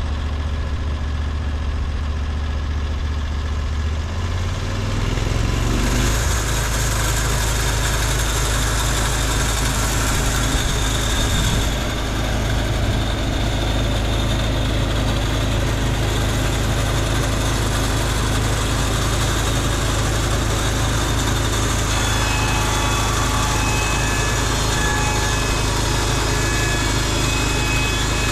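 Norwood LumberPro HD36V2 portable band sawmill's engine runs steadily, then throttles up about five seconds in. From then on a higher hiss and whine joins the engine sound, with short whining tones in the last few seconds.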